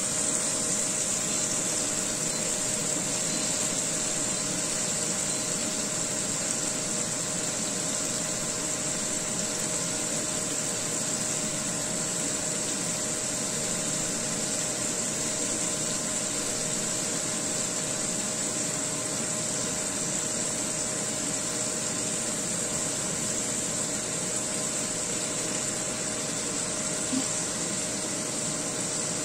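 Beef-wrapped enoki mushrooms frying in a pan: a steady sizzle over a steady low mechanical hum, with one light tap near the end.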